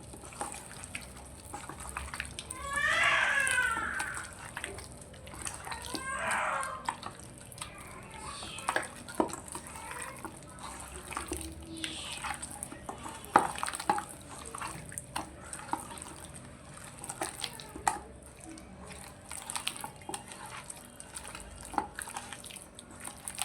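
Marinated chicken pieces being mixed by hand in a bowl: irregular wet squelches and small clicks as the coated meat is worked.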